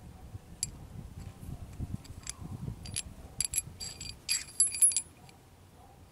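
Steel washers clinking against a swingarm pivot bolt as they are handled and slid onto it: a scatter of light, ringing metal clicks, thickest from about three and a half to five seconds in.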